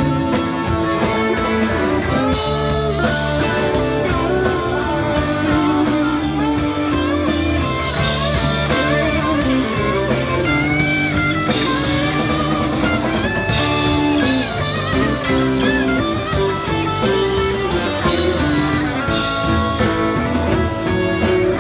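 Live rock band playing an instrumental passage on electric guitars, bass guitar and drum kit, with a lead line of bending notes over the groove.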